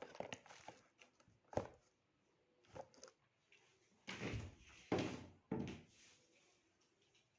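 Knocks and thumps of a box or product being handled and set down: a sharp knock about one and a half seconds in, then three heavier thumps a little past the middle.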